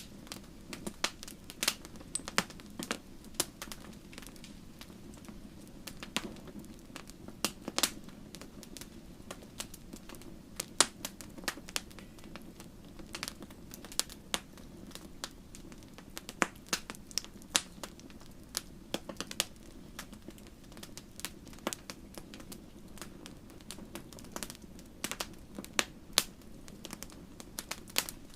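Wood fire crackling, with irregular sharp pops and snaps several times a second over a steady low rush.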